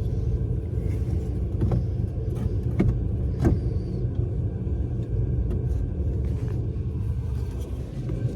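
Steady low rumble with a few light clicks and taps, about two and three seconds in, of small parts and tools being handled during reassembly.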